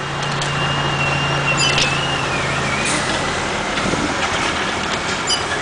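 Heavy diesel semi-truck engine running as the tractor-trailer creeps forward under load, a steady low drone. From about half a second in, a thin high whine wavers for a couple of seconds and then fades.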